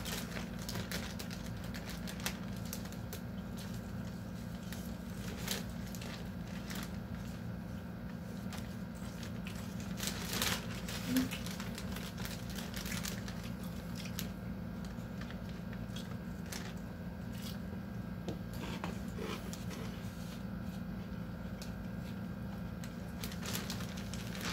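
Plastic salad-kit bag crinkling in short bursts as it is handled and shaken, over a steady low hum.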